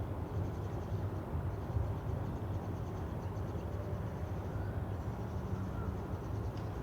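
Suburban evening ambience dominated by the steady low rumble of distant traffic, with a faint, high, fine pulsing chirr above it.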